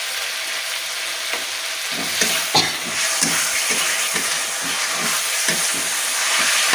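Chopped tomatoes sizzling in hot oil in a metal kadai, with a metal spatula scraping and stirring through them, the strokes coming repeatedly from about two seconds in.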